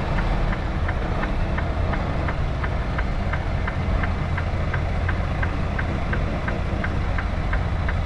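Semi-truck diesel engine running at low idle while the tractor reverses slowly, heard inside the cab, with a light, even ticking about three times a second over the steady rumble.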